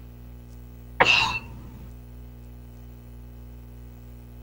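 A single short, sharp throat sound from a person, like a cough or throat-clear, about a second in, heard through video-call audio over a steady low electrical hum.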